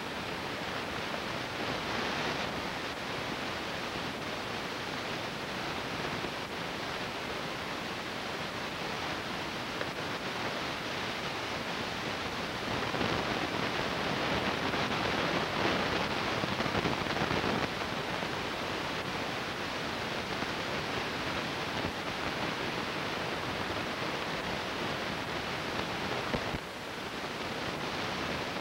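Steady hiss with no distinct events, a little louder for a few seconds in the middle and dipping briefly near the end.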